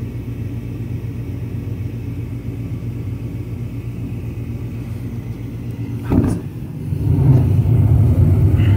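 Gas furnace starting up: a steady hum from the draft inducer fan, then about six seconds in a short whoosh as the gas burners ignite, after which a louder, steady burner rumble carries on.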